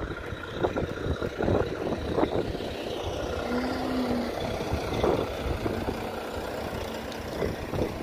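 Wind buffeting the microphone over the steady rumble of a heavy truck's diesel engine running at a distance, with a brief low steady tone about three and a half seconds in.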